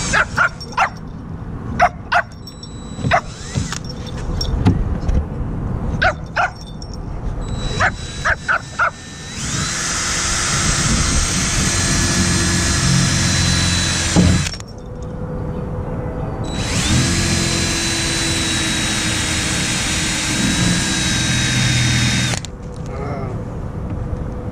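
Cordless drill drilling out the rivets that hold a kayak's handle: it runs steadily twice, about five seconds each time, with a constant high whine. Before that come several short, sharp sounds.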